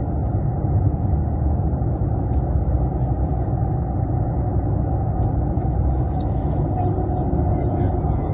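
Steady low road rumble inside the cabin of a moving car.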